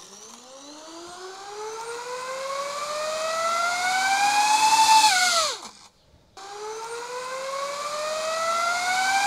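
DJI FPV drone's motors and propellers in turtle mode, spinning up to flip the upside-down drone back over. The whine climbs steadily in pitch for about five seconds, then drops away as the motors wind down. After a short break the same rising whine comes again.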